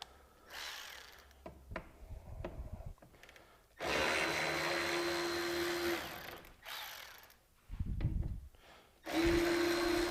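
Milwaukee cordless electric ratchet running in two steady bursts of about two seconds each, the second starting about nine seconds in, backing out fasteners while engine covers are removed. Light clicks and knocks of tools and plastic parts come before the runs.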